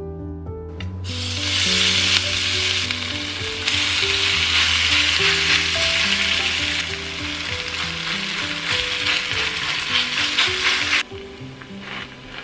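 Grated potato and broccoli mixture sizzling loudly in hot olive oil in a frying pan. The sizzle starts about a second in and cuts off suddenly near the end.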